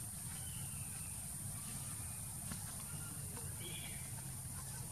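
Faint outdoor ambience: a steady low rumble with a few brief, faint high chirps.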